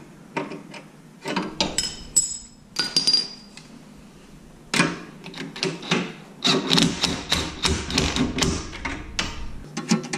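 A few metal clinks of hand tools on suspension parts, then about five seconds of a cordless impact wrench hammering in rapid blows, tightening a front-suspension fastener.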